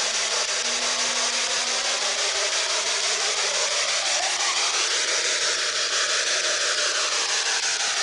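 Spirit box radio scanner running: continuous static hiss as it sweeps the radio band, with slow rising and falling tones through it. A low steady hum sounds in the first couple of seconds, which the ghost hunters take for a spirit humming.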